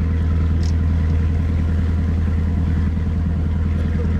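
Boat engine running steadily: a deep, even drone.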